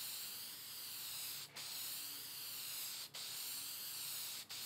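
Clear shellac being sprayed onto a wooden tabletop: a steady hiss in passes of about a second and a half, cut by three brief stops.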